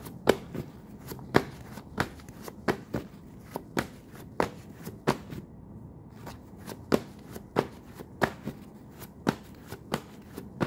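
Tarot deck being shuffled by hand: a steady run of short, sharp card slaps, about one and a half a second.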